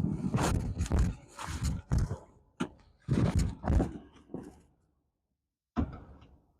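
Muffled thumps and scuffing from a clip-on microphone lodged inside a boot, picking up the wearer's footsteps and movement. The signal drops out to dead silence just under five seconds in, with one more thump near the end.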